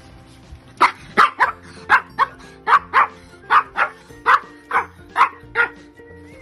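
A small dog barking repeatedly, about a dozen sharp, high barks, often in quick pairs, starting about a second in and stopping shortly before the end.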